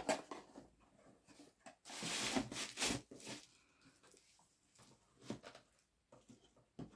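Cardboard packaging and boxed items being handled: a burst of rustling and scraping about two seconds in, then a few scattered soft knocks.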